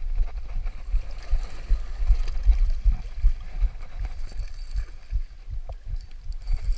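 Low, uneven rumble of wind buffeting the microphone.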